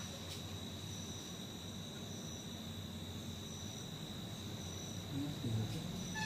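Crickets trilling steadily at a high pitch, with a second, higher trill coming and going. A brief low sound rises above them about five seconds in.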